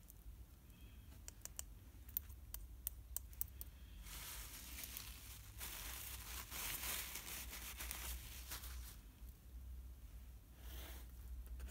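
A few light, sharp clicks, then several seconds of paper tissue crumpling and rustling, with a last brief swish near the end.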